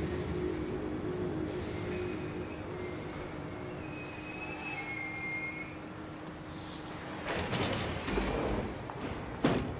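Subway car interior running noise: a steady low rumble, with faint high wheel squeals in the middle. A louder rushing swell comes near the end, then a sharp knock just before it ends.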